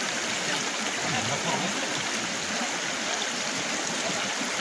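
Shallow rocky river flowing steadily over stones, an even rushing wash of water.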